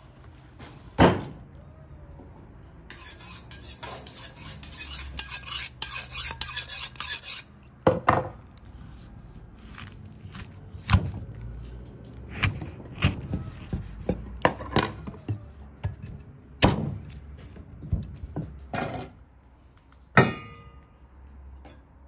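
A plastic bag crinkling for a few seconds, then a string of sharp, irregular knocks of a knife on a wooden cutting board as a raw leg of lamb is cut apart.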